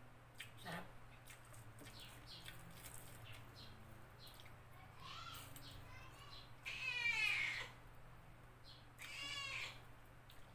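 Mukbang eating sounds: soft mouth clicks and chewing while eating by hand. There are three short, wavering, high-pitched calls about five, seven and nine seconds in, the middle one the loudest.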